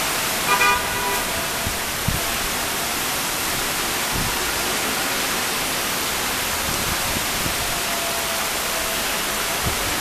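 Heavy thunderstorm rain pouring down in a steady, loud hiss. A car horn gives a short toot about half a second in.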